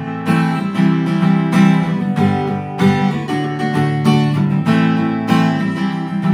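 Fender CD-60 V3 dreadnought acoustic guitar, purely acoustic, strummed in chords. There are roughly two strums a second, each chord ringing on into the next, with the chord shape changing every few strums.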